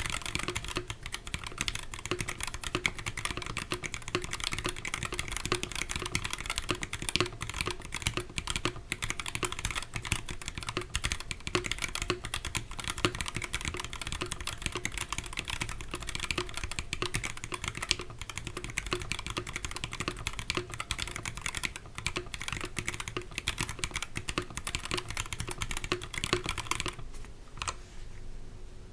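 Continuous fast typing on a mechanical keyboard fitted with stock, unlubricated Linjar switches: a dense, irregular clatter of keystrokes that stops about two seconds before the end.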